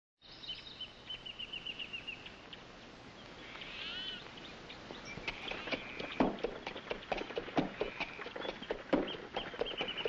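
Birds singing: a run of quick repeated high trills, then a few arching whistled calls. From about halfway in, the clip-clop of a horse's hooves pulling a carriage joins, in irregular sharp knocks.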